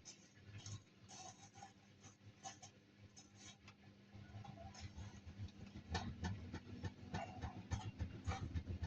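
Samsung washing machine running a cotton wash: the drum turning with irregular light clicks and knocks, and a low hum that grows louder about six seconds in as the motor works harder.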